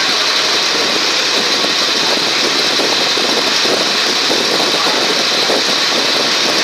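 Passenger ferry launch's engine running steadily while the boat is under way, a constant noise with a steady hiss and no change in level.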